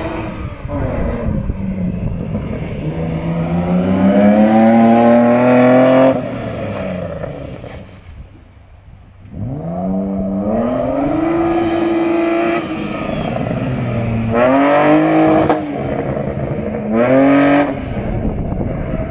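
BMW E36 Compact's 2.8-litre straight-six revving hard under acceleration: two long rising pulls that cut off sharply when the throttle is lifted, followed by two short high bursts near the end.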